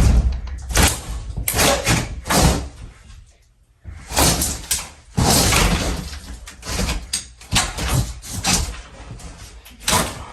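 Demolition of a mobile home's interior wall: a run of bangs and knocks with stretches of scraping and crumbling as drywall and framing are pried and broken apart, with a short lull about three seconds in.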